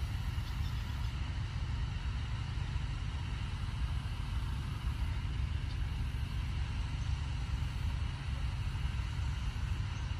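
Steady, unsteady-edged low rumble with a faint even hiss above it: outdoor background noise with no distinct events.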